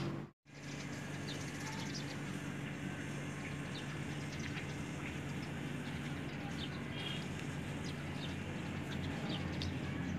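Steady low background hum and hiss with a few faint, short chirps scattered through it, and no clear meowing; the sound cuts out completely for a moment just after the start.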